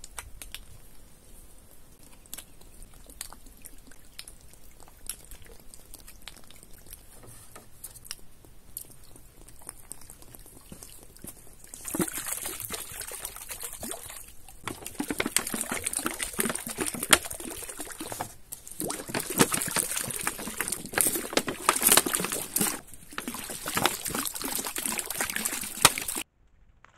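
Water pouring from a row of upturned plastic bottles into a small shallow pond and splashing on the surface. It gets much louder about twelve seconds in and cuts off abruptly just before the end. Before that there are faint light knocks as the bottles are set in place.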